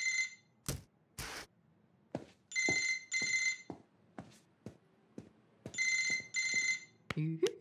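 Telephone ringing in paired rings, ring-ring then a pause, twice about three seconds apart. Two short knocks come about a second in.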